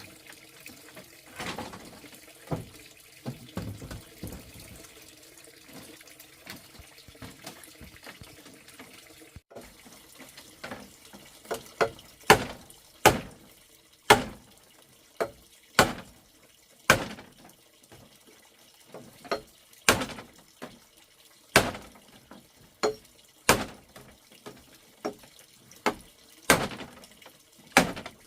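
Water sounds with a few scattered knocks, then, after a cut about a third of the way in, a steady run of loud, sharp knocks about once a second, typical of hand work on a wall.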